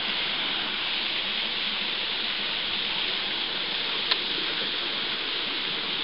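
Steady rushing of a small waterfall splashing down a sandstone rock face, with one faint click about four seconds in.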